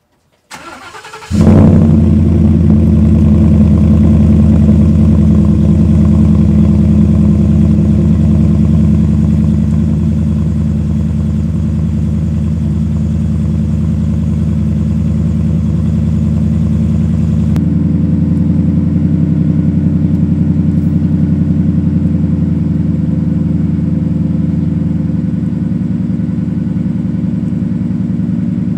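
Cold start of a Ford F-150's 5.0 V8 through a Magnaflow muffler with the resonator deleted: a brief crank, then the engine catches about a second in with a loud flare and settles into a steady, loud cold idle. About two-thirds of the way in, the idle note changes abruptly and drops a little in level.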